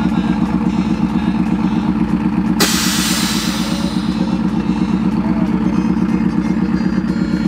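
Pickup truck engine idling steadily, with a sudden loud hiss of air about two and a half seconds in that fades away over a second or so: the front air-bag suspension's valves releasing air as the switch is worked.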